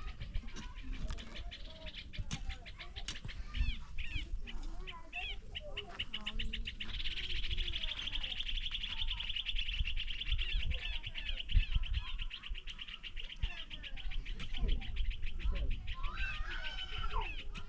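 Small birds chirping and twittering, with many short high notes. Through the middle there is a dense, rapid run of high chirps, with low rumbling noise underneath.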